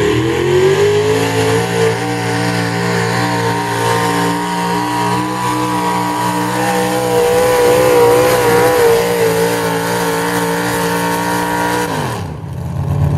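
Economy Hot Rod class pulling tractor's engine revving up hard as it launches with the weight-transfer sled, then held at high rpm, pitch wavering slightly under load, down the track. About twelve seconds in the revs drop sharply as the throttle comes off at the end of the pull.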